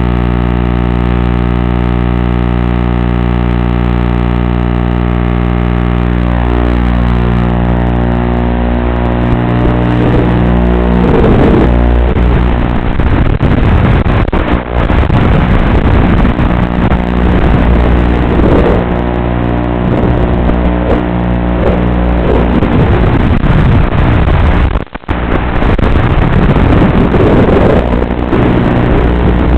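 FPV quadcopter's motors: a steady buzz at first, then from about ten seconds in a loud whine that keeps rising and falling in pitch with the throttle, with a brief drop-out about twenty-five seconds in.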